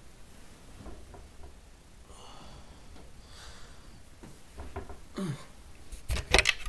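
A person waking up in bed: soft breaths and sighs, a short low falling groan about five seconds in, then loud knocks and rustling as the camera beside him is moved near the end.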